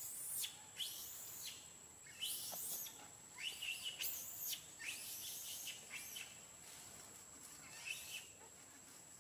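Young long-tailed macaque screaming: a rapid run of short, high, shrill squeals, each rising and falling in pitch, dying away after about six seconds with one last squeal near the end.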